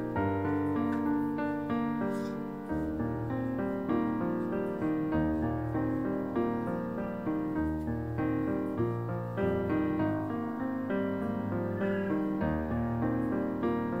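Background piano music: calm, slow notes over a low bass note that changes every two to three seconds.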